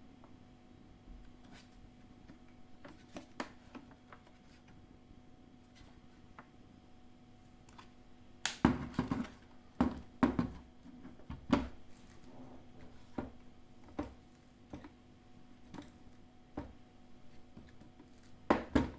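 Handling clicks and knocks on a portable folding desk fan's plastic parts during unboxing, over a faint steady hum. The knocks are sparse at first, then come in a quick cluster about halfway through and again as a sharp pair near the end.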